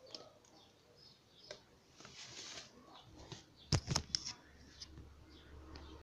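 A plastic toy alarm clock being handled: small clicks and knocks as it is turned over in the hand, with a short rustle of plastic sheeting about two seconds in. Two loud knocks come close together a little under four seconds in as it is put down, followed by a few lighter clicks.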